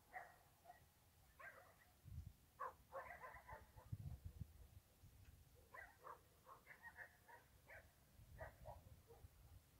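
Faint dog barking in short runs of quick barks, one run about two and a half seconds in and a longer one from about six to nine seconds, over a low rumble.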